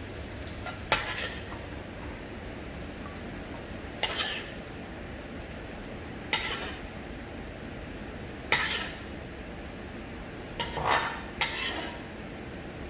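A steel ladle scrapes and knocks against a wok as sautéed capsicum and onion are scooped out of hot butter. The strokes come every two to three seconds, with several in quick succession near the end, over a low steady sizzle.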